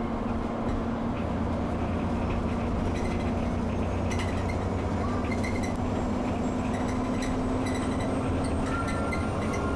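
Alexander-Dennis Enviro 400 double-decker bus heard from inside at motorway speed: a steady engine drone whose pitch steps up slightly about halfway through, with a thin whistle coming in and rising near the end. Interior fittings rattle and click throughout.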